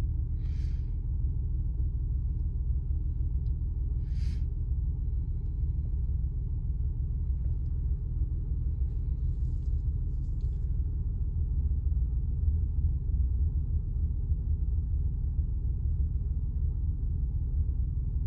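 2003 Acura TL Type S 3.2-litre V6 idling steadily with a low rumble, the automatic transmission held in reverse after a fluid top-up to test whether it regains pressure. A few brief rustling noises sound over it.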